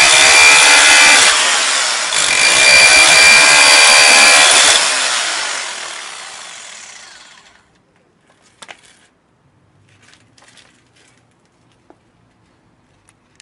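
Rotary hammer running with its bit hammering into concrete: a loud, steady noise with a thin whine, easing briefly about a second in, then stopping about five seconds in and dying away over a couple of seconds. A few faint clicks follow.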